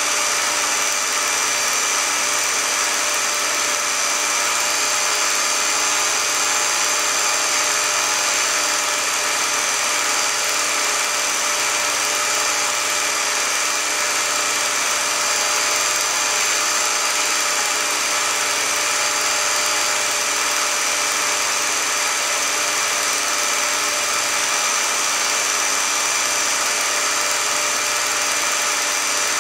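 Film projector running: a steady mechanical whir with a constant high hiss that does not change.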